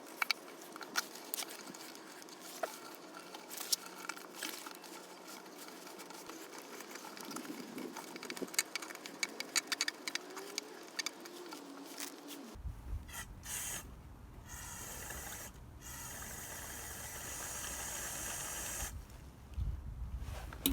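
Light clicks and taps as small carburetor parts are handled. Then, for the cleaning, an aerosol spray hisses in three bursts, the last and longest lasting about three seconds.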